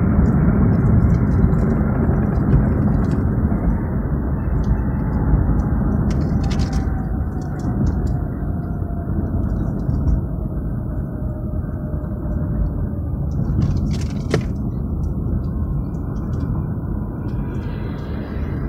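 Car road noise heard from inside the cabin: a steady rumble of tyres and engine that eases as the car slows, with a faint whine falling in pitch.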